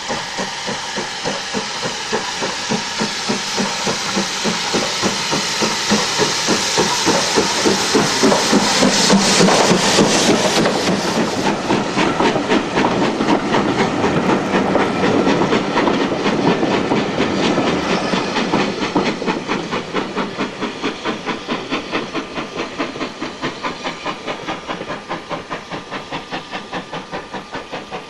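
Steam tank locomotive hauling a passenger train, its exhaust beating in a quick, even chuff over a hiss of steam. It draws closer and louder, is loudest as it passes about ten seconds in, then fades as it goes away, the beats still clear at the end.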